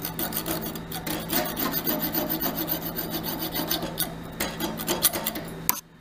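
A thin metal wire held against a resin shifter knob spinning on a Nova Galaxi DVR wood lathe, making a steady rasping scrape over the lathe's steady hum. The scraping drops out briefly near the end.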